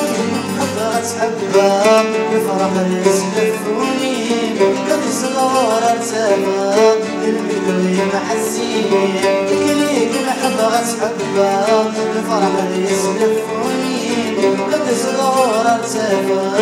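A man sings a Kabyle song in an ornamented, wavering melody, accompanied by a plucked lute and acoustic guitars.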